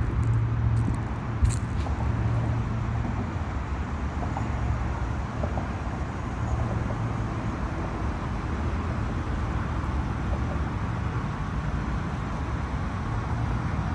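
A car engine idling with a steady low hum, with a couple of short clicks in the first two seconds.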